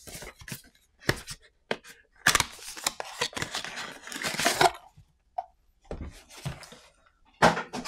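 Cardboard box being handled and opened: a few short knocks and rustles, then a long scraping slide of card as the contents are pulled out, followed by lighter handling noises.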